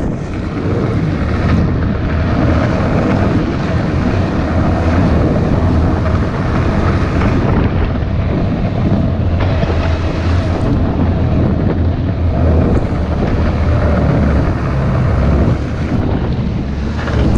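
Snowmobile engine running steadily while riding, with wind buffeting the microphone.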